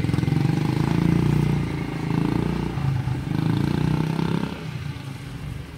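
Quad bike (ATV) engine running close by with a rapid pulsing exhaust, loud for most of the stretch and dropping off near the end.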